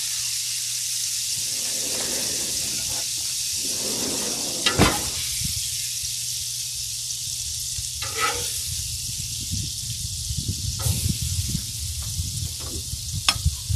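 Bananas foster sauce of butter, brown sugar and spiced rum sizzling steadily on a hot Blackstone flat-top griddle as the rum cooks off. A few sharp clinks, the loudest about five seconds in.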